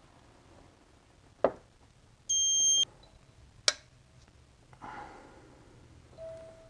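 Digital electronic torque-angle wrench giving one steady high beep about half a second long, its signal that the cylinder-head bolt being turned has reached the set angle. Two sharp clicks come from the wrench and socket on the bolt, one before the beep and one after.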